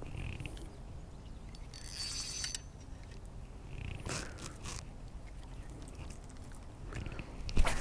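Faint handling noise from a spinning rod and reel held close to the microphone: light rubbing and a few small clicks, the sharpest click near the end.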